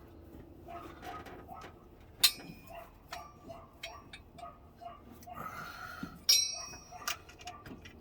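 Metal hand tools and parts clinking during engine work: two sharp ringing clinks, one about two seconds in and one about six seconds in, with light ticking and tapping between them.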